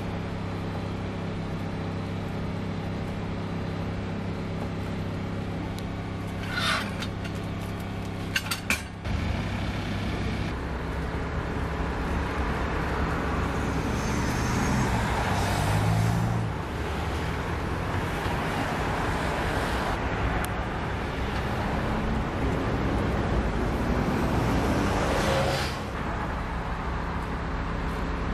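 Steady hum of idling engines and road traffic, with a few sharp knife chops on a wooden cutting board about seven and nine seconds in.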